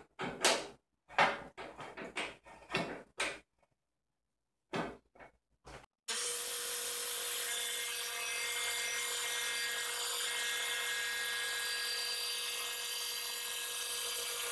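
A series of sharp metal clicks and knocks as the table saw's rip fence is handled. About six seconds in, the belt-driven, cast-iron table saw comes in abruptly, running steadily with no load and its blade spinning freely.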